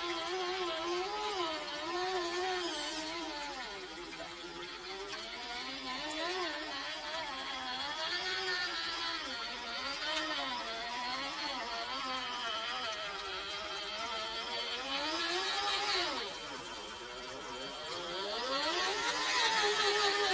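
Traxxas TRX-4 RC crawler's electric motor and geared drivetrain whining as it crawls over rock, the pitch rising and falling steadily with the throttle, dipping and then climbing again near the end.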